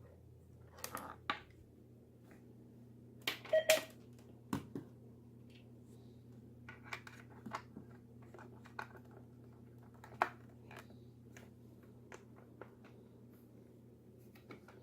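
Scattered short clicks and taps, a dozen or so at uneven intervals, over a faint steady low hum.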